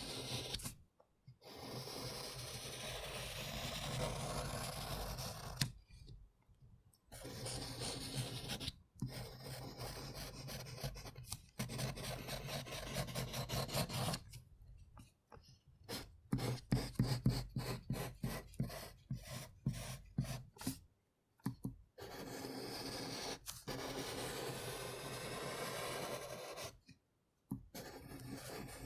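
Graphite pencil writing and scribbling on a sheet of paper: a continuous scratchy rasp in long stretches, broken by short pauses as the pencil lifts. Midway it turns to quick, short strokes, several a second, for a few seconds.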